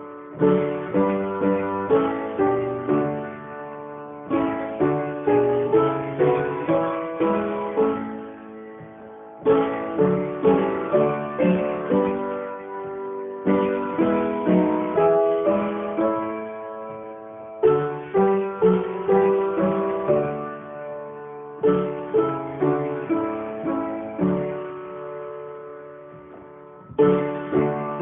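Instrumental music on a plucked string instrument, picked note by note in phrases that restart about every four seconds, each opening with a louder note and fading away.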